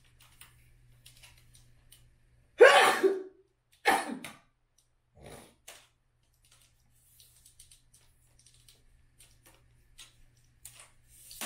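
A woman sneezing once, loudly, about two and a half seconds in, followed by a shorter second burst of breath; faint clicks of a phone tripod being handled.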